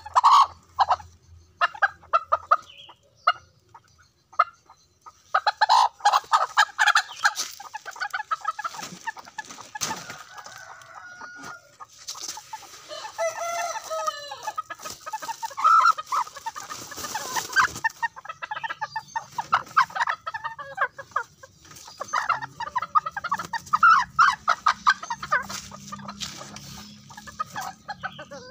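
Ayam kate bantam chickens clucking in quick runs of short calls, with a longer pitched call in the middle. A woven plastic sack rustles while it is handled, about twelve to eighteen seconds in.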